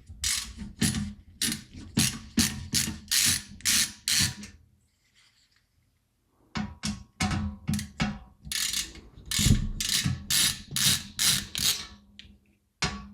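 Screwdriver backing screws out of a PC case's metal frame: a quick series of sharp clicks, about three a second, stopping for about two seconds midway and then going on.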